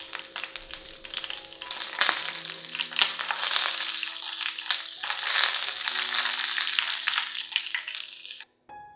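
Pork belly sizzling and crackling in hot oil in a pan, louder from about two seconds in, cutting off suddenly near the end.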